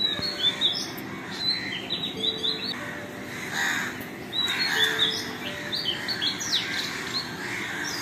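Dawn chorus of several birds calling at once, a busy run of quick, high chirps and stepping notes with many small overlapping peaks. A short, faint low note repeats every couple of seconds underneath.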